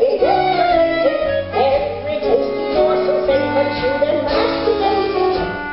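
A woman singing a show tune with instrumental accompaniment, her voice swooping up and down in short phrases over sustained instrument notes.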